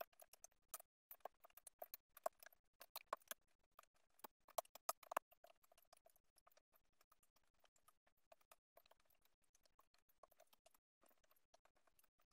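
Faint typing on a computer keyboard: quick runs of key clicks, busier and louder in the first half, then sparser.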